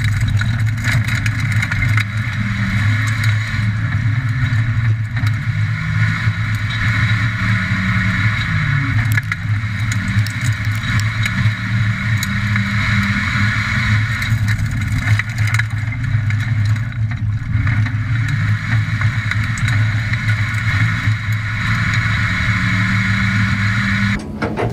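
Ford Falcon XR6's inline-six engine running under load at fairly steady revs, heard from inside the stripped, caged cabin while lapping a dirt track. The pitch wavers only slightly, dipping and rising a few times, with occasional knocks. The sound cuts off suddenly just before the end.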